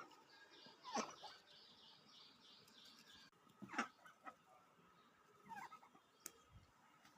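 Pet duck making soft calls after a bath: about five short, separate calls spread over several seconds. Right after the first call comes a quick run of faint high notes, about five a second.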